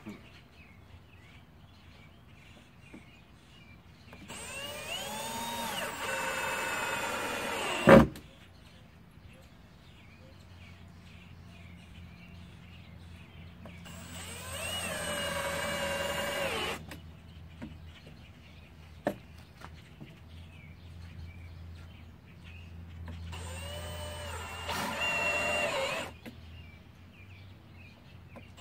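Cordless drill driving screws into wooden stair treads, three times. Each run starts with a rising motor whine and lasts about three seconds, and the first ends in a sharp knock.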